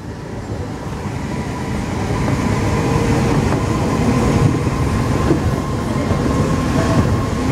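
Alstom NS-16 rubber-tyred metro train running between stations, heard from inside the driver's cab: a steady rolling rumble that grows over the first two seconds or so and then holds, with a faint steady whine above it.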